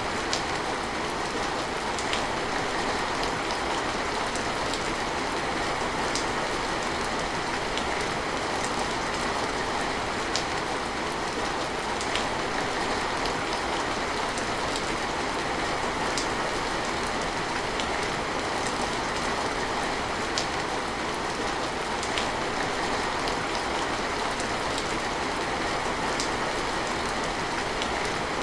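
Steady rain falling, an even hiss of drops, with scattered sharper drips now and then.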